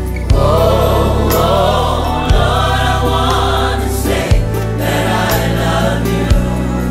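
Gospel choir singing with a live band. A low bass-and-drum accent lands about every two seconds under the voices.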